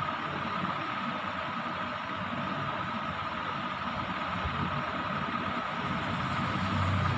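Steady mechanical hum with a constant high whine and a low drone underneath, unchanging throughout, as of a running motor or machine.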